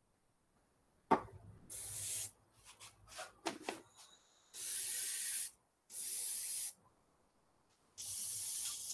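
Paint being sprayed in four short hisses, each about half a second to a second long, with a couple of knocks in between. It is a colour coat going on over liquid masking.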